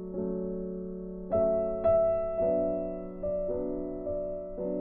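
Background music: slow, soft solo piano, single notes and chords struck every half second to a second and left to ring out.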